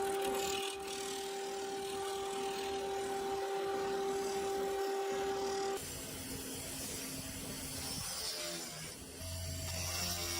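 A motor-driven tool working bone, with a steady whine under a rasping, grinding noise. The sound changes abruptly about six seconds in, and a low hum starts near the end.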